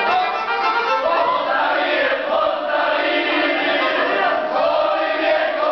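A crowd of voices singing together over instrumental music, a loud and unbroken group song.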